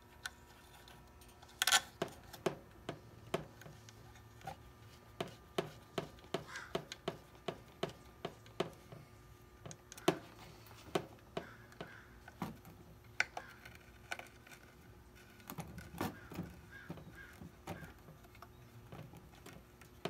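Irregular sharp clicks and light taps, about one or two a second, of small metal parts and hand tools being handled on a workbench.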